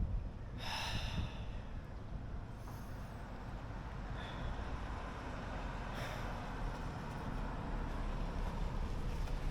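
Road traffic: a steady rumble of vehicles, with a short brighter sound about a second in and a click near the middle.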